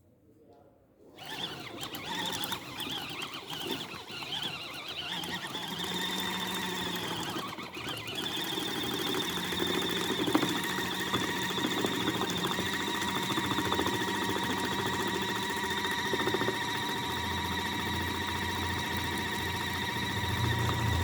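Mini washing machine's electric motor starting about a second in and running with a steady high-pitched whine over a low hum, the hum getting louder near the end.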